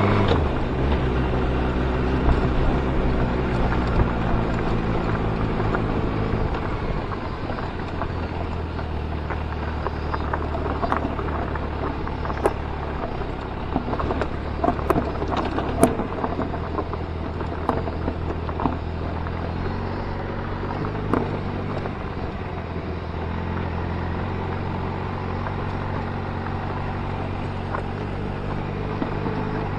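Motorcycle engine running steadily at low revs, its pitch settling and shifting a few times, with scattered clicks and knocks in the middle.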